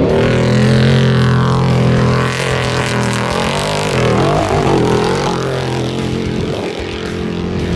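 Off-road race truck's engine running hard at high revs as it approaches and passes close by. The pitch bends as it goes past about four seconds in.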